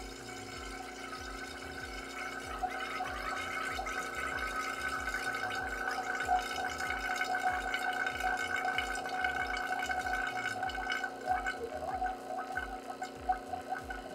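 JB Fast Vac rotary-vane vacuum pump running steadily, getting a little louder a couple of seconds in, as it pumps the air out of a bell jar and drops the pressure until the water inside boils at room temperature.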